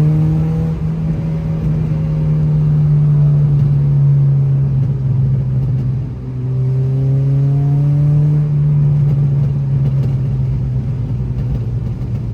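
Acura RSX Type S four-cylinder running through a Skunk2 Alpha header and Invidia N1 exhaust, pulling under acceleration with a steady drone and a slowly climbing note. The sound dips briefly about halfway through, then climbs again.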